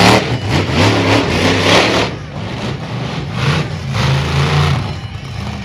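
Large truck engine running loud, its pitch rising and falling as it is revved, loudest early on and again a few seconds in.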